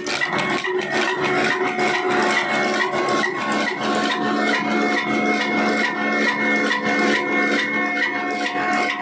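Old black diesel engine running an atta chakki (stone flour mill) by flat belt: a steady, fast rhythmic rasping clatter from the mill and belt drive, with a constant high whine over it.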